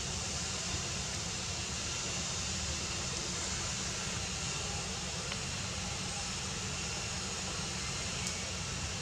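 Steady outdoor background noise: a low rumble with an even hiss higher up and no distinct events.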